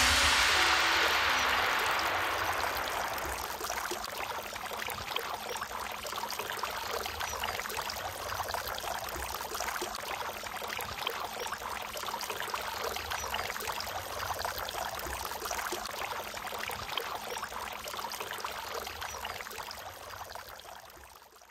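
Water from a stone garden fountain trickling and splashing steadily into its basin, fading out near the end.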